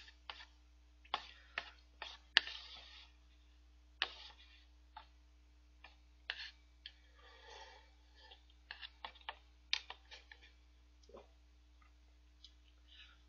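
Faint sounds of eating udon with chopsticks from a takeout bowl: scattered sharp clicks and taps of the chopsticks and mouth noises, with a short stretch of slurping a little past the middle.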